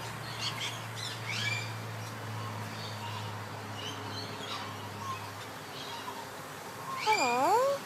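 Male Eclectus parrot making faint high chirps, then near the end a loud drawn-out talking call that dips and then rises in pitch, shaped like its "hello".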